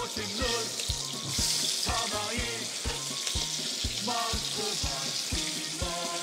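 Beef sirloin sizzling as it fries in margarine, a steady hiss, under background music with a steady beat and a light melody.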